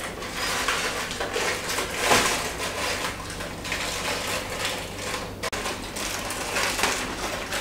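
Crumpled aluminium foil crinkling and rustling as it is pulled out of a chocolate shell, in irregular crackly spells, loudest about two seconds in.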